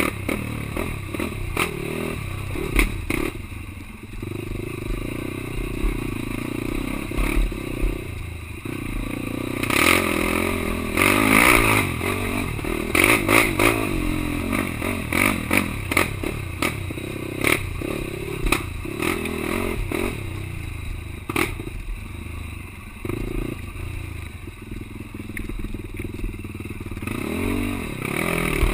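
Quad (ATV) engine running and revving up and down as it is ridden over rough ground, with frequent knocks, rattles and scrapes from the machine.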